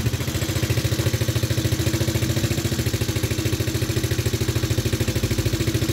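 Small quad bike engine idling steadily, an even rapid putter of about a dozen pulses a second.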